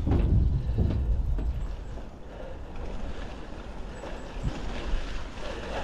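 Norco Storm mountain bike rolling along a trail: tyre and frame rumble with a few knocks, loudest for the first couple of seconds, then easing to a quieter steady rumble.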